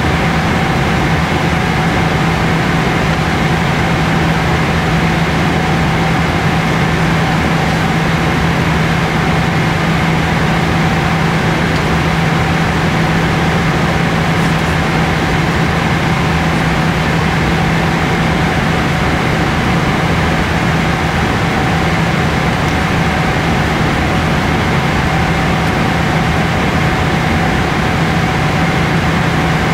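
Steady cabin noise of a Boeing 777-300ER in cruise flight: a constant rush of airflow and drone from its GE90 engines, with a steady low hum.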